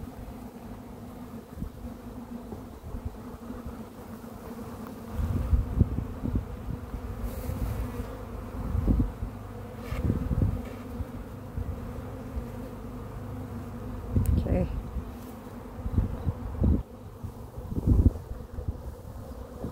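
Honeybees from an opened nucleus colony buzzing in a steady hum. Irregular low rumbles on the microphone come and go from about five seconds in, louder than the buzz.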